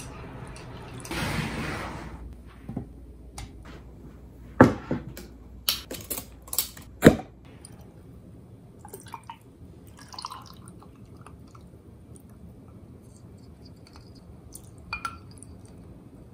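Ice cubes dropped into a glass: several sharp clinks in quick succession, then liquid poured over the ice, with faint clinks and drips as it settles. A short rush of noise comes about a second in.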